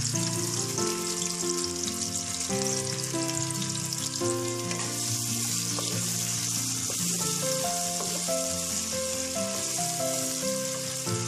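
Sliced onions sizzling in hot oil in a kadai, stirred with a wooden spatula, under background music that plays a melody of held notes.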